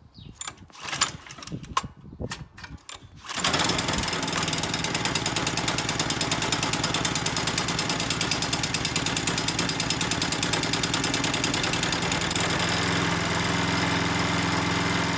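A Swardman Edwin 2.0 reel mower's small gasoline engine catches about three and a half seconds in, after a few handling knocks and clicks. It then runs steadily with a fast, even pulse.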